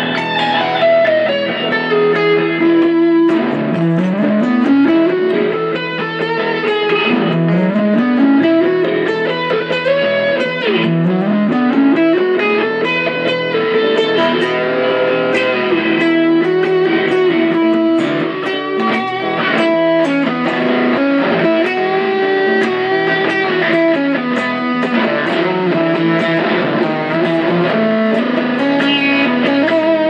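Electric guitar improvising in E, with notes gliding up and down over a steady held low note.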